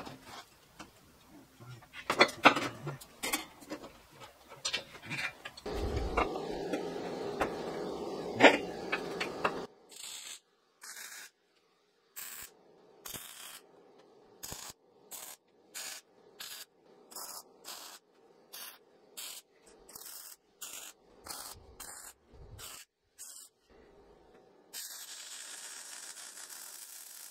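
Steel square-tube legs and welding magnets knocked and clanked into place on a thick steel plate, then a run of short chopped-up bursts of work sound. A MIG welder welds steadily with a hiss for the last couple of seconds.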